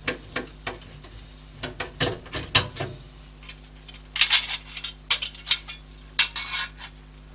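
Hard parts of a PC case being handled: scattered clicks and knocks, then two spells of rattling and scraping about four and five seconds in.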